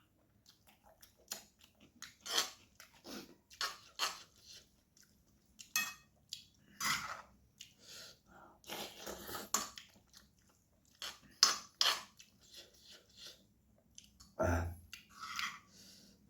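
Close-up eating of spicy noodles: irregular chewing and crunching, with utensils clinking against a bowl, and short quiet gaps between bites.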